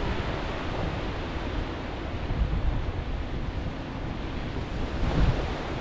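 Sea surf washing in steadily, mixed with wind buffeting the microphone.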